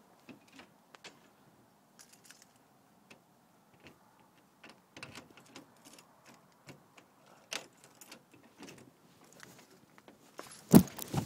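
Handling noise of a phone being carried and moved with its lens covered: scattered faint clicks and rustles, then a loud clatter of knocks and rubbing near the end.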